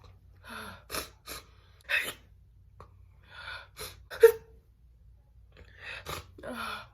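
A woman's sharp, gasping inhales as she builds up to sneezes and holds them back, with one short, loud stifled sneeze about four seconds in.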